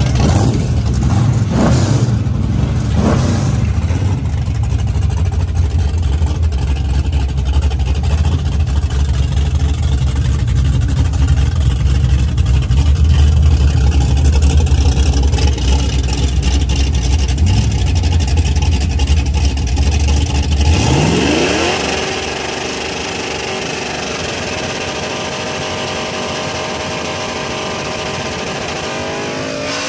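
Drag-racing car engines: a deep, loud rumble with a few throttle blips at first, then about two-thirds in an engine's pitch climbs quickly and holds at high revs, dropping again at the very end.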